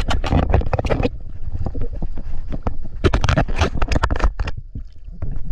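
Water splashing and sloshing close to the microphone, in two bouts of rapid splashes: one at the start and another from about three seconds in.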